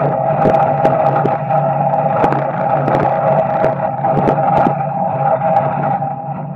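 Street stock car's small-block Chevy V8 running steadily, heard from inside the cockpit, with scattered sharp ticks and knocks over the engine. The engine gets a little quieter near the end.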